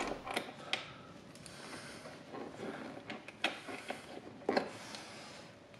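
Faint handling noises of hands taking out a loosened seat bolt and washer at the front of a motorcycle seat: light rubbing with a few small clicks, the clearest a little under a second in and two more between about three and a half and four and a half seconds in.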